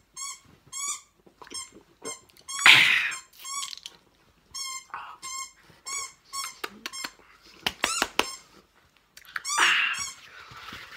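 A dog squeezing a squeaky toy, giving short, high squeaks in quick clusters throughout. Two loud, harsh gasps from a person reacting to a neat tequila shot come about three seconds in and again near the end.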